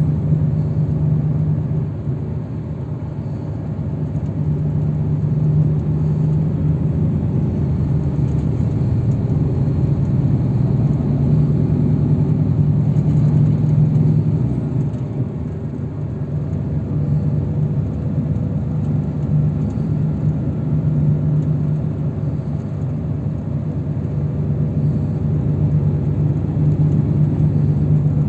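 Engine and road noise inside a moving shuttle bus: a steady low drone that eases off briefly twice and builds again.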